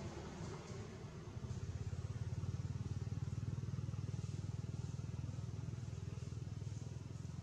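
A motor engine running steadily at idle, a low even hum that comes up about a second in.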